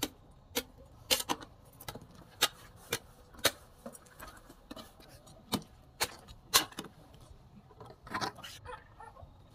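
Sharp knocks and clicks at uneven intervals, roughly one every half second with a short gap after the middle, from hand work on sugarcane stalks.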